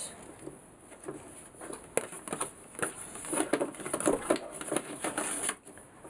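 Hands handling a paper energy label and cardboard packaging: a run of irregular light clicks and rustles, busiest in the middle seconds.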